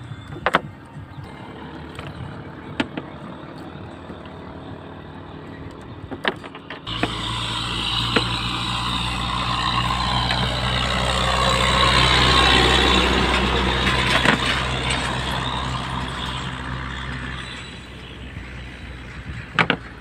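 A motor engine running with a steady low hum, then from about seven seconds in a louder engine sound that swells to a peak about twelve seconds in and fades away, like a motor passing by.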